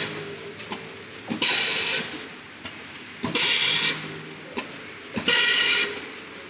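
Automatic triangle nylon tea bag packing machine running through its cycle: three bursts of hiss, each about half a second long and roughly two seconds apart, with sharp clicks and knocks between them.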